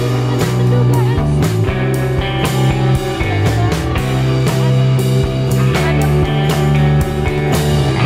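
Background rock music with guitar and a steady drum beat.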